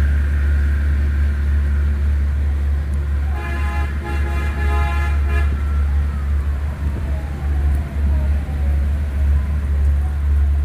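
A car horn blows once, for about two seconds, starting about three and a half seconds in, over a steady low rumble of street traffic. Later a faint tone slowly falls in pitch.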